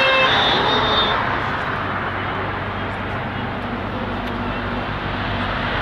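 Motorcycle engines running steadily: a low engine hum under a broad rush of noise.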